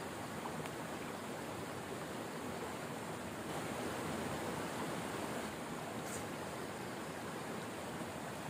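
Steady rushing of flowing water, swelling slightly about three and a half seconds in.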